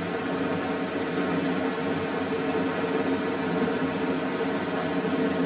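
Steady background hum and hiss with no speech, even and unchanging throughout.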